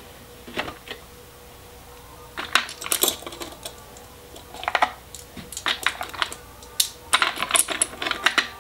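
Small metal tools clinking and clicking against each other and the drawer as they are picked through by hand in an open tool chest drawer, in short bursts of sharp taps.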